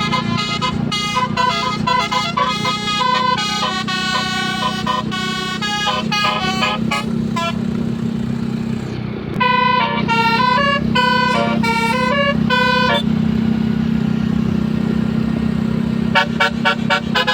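Tour bus telolet horn, a set of musical air horns, playing quick runs of stepped notes in three spells with short pauses between. A steady low hum runs underneath.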